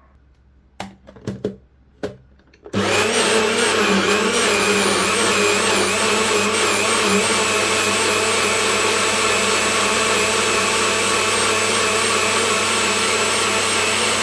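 A few sharp knocks, then about three seconds in a blender motor starts and runs steadily, liquefying callaloo, cucumber and watermelon with no water added. It winds down right at the end.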